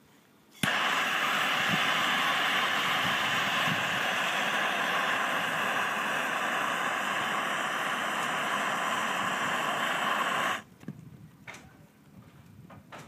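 Bernzomatic hand gas torch lit with a click about half a second in. Its flame hisses steadily for about ten seconds, heating a copper pipe joint for soldering, then shuts off suddenly.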